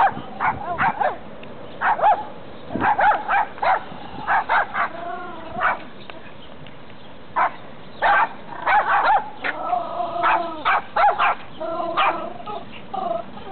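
A dog barking and yipping in quick, irregular bursts.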